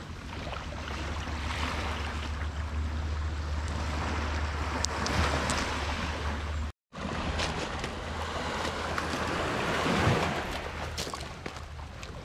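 Sea surf breaking and washing on the shore, with wind rumbling on the microphone; the sound surges a couple of times and cuts out for a moment about seven seconds in.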